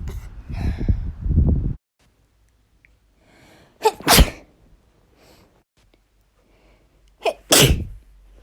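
A woman sneezing naturally twice, about three and a half seconds apart, each a quick catch of breath followed by the sneeze. The first couple of seconds hold a low rumbling noise that cuts off abruptly.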